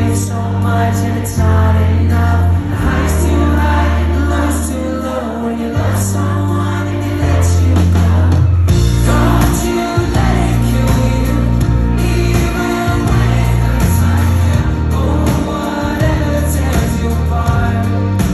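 A live pop-rock band plays at concert volume with a man singing the lead into a microphone. The music becomes fuller and louder about nine seconds in.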